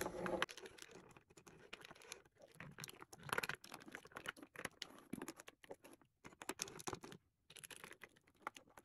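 Metal and plastic lipstick tubes being moved and set down by hand on a wooden tabletop: a run of irregular light clicks and taps, with the odd scrape of a case sliding over the wood.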